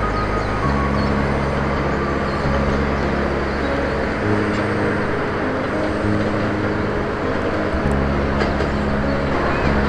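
Background music with held low bass notes that change every second or two under a slow melody.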